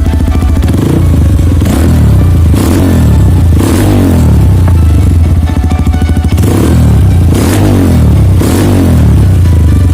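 Honda CRF150L's single-cylinder four-stroke engine with a Radamel Racing 'over' type aftermarket exhaust, idling and then blipped repeatedly, each rev rising and falling quickly, with a short lull midway before more blips.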